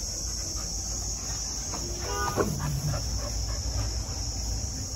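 Crickets chirping steadily. About two seconds in comes a brief voice-like sound that falls in pitch.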